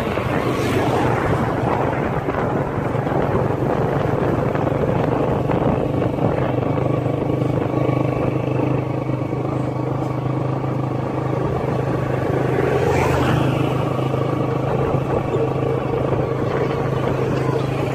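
Engine of the vehicle carrying the camera, running steadily at cruising speed with road and wind noise, and a brief louder swell about two-thirds of the way through.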